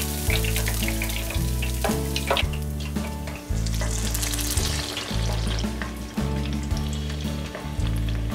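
Hot oil sizzling and crackling around breaded pork cutlets in a deep fryer's wire basket, with scattered sharp pops; the cutlets are being fried a second time to crisp them. Background music with a steady bass line plays underneath.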